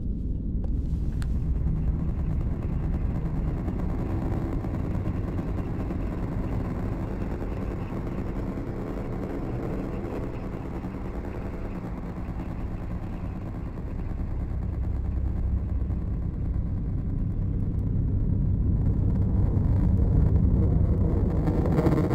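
Low, droning horror-film sound design: a dark rumble with sustained tones underneath, swelling louder over the last few seconds.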